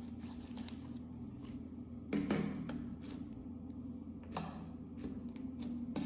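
Hands kneading and folding clear slime: scattered sticky clicks and pops, with louder squelches about two seconds in and again a little past four seconds.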